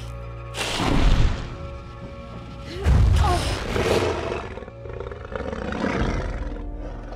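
A dragon roaring several times, loudest about a second in and again around three seconds, over background music.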